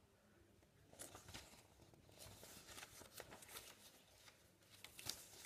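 Near silence: quiet room tone with faint, scattered rustles and ticks of paper being handled.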